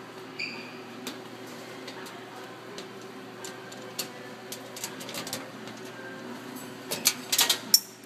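Small plastic clicks and knocks from a small black square enclosure fan and its cord being handled, with a quick cluster of louder clicks about seven seconds in, over a steady low hum.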